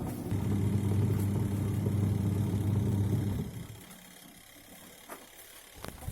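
Twin-tub washing machine's electric motor running with a steady electrical hum for about three seconds, then switching off abruptly, leaving a quieter pause.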